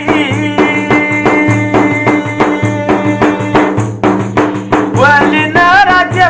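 Pashto folk tappey music: a large frame drum beaten in a steady rhythm over sustained held tones, with a man's singing voice coming back in about five seconds in.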